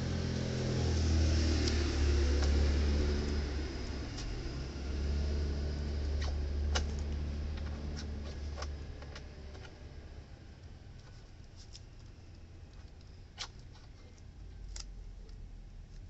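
A low steady rumble that fades away after about nine seconds, with scattered light clicks and taps as the insulated air-conditioner pipe is handled; the sharpest clicks come near the end.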